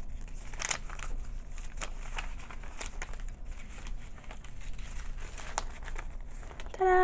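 Paper rustling and crinkling as the pages of a LEGO instruction booklet are handled, turned and unfolded, in scattered short rustles. Near the end there is a brief steady tone, the loudest sound.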